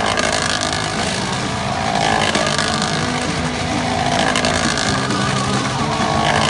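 Motorcycle engine running hard as the bike circles inside a steel-mesh globe of death, its pitch swelling and dipping with each lap.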